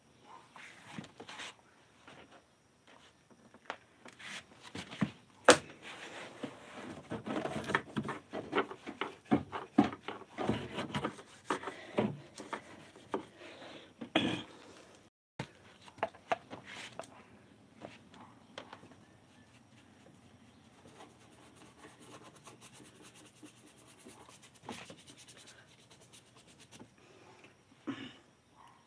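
Handling noise from a phone held against clothing: irregular rubbing and small knocks of the microphone on fabric, busiest in the first half and fainter after that.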